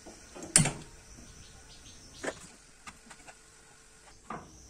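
A sharp click about half a second in, then two softer clicks, from handling at a stainless-steel gas stove with an empty aluminium kadai.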